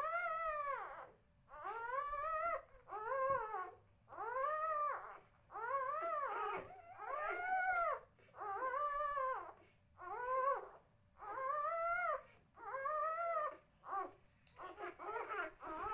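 Newborn chocolate Labrador puppy crying: a string of high whining calls, about one a second, each rising then falling in pitch. Near the end the calls come shorter and quicker.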